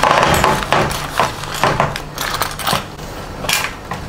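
3D-printer kit parts being handled on a metal bench: irregular clicks and knocks of small metal parts, with rustling of plastic parts bags.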